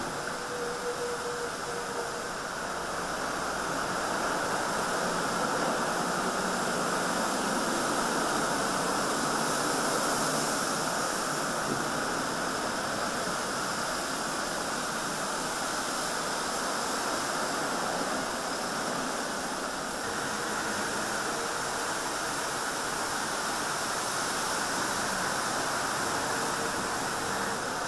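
Steady rushing and splashing of floodwater as vehicles drive through a flooded road underpass, under a low hum of traffic.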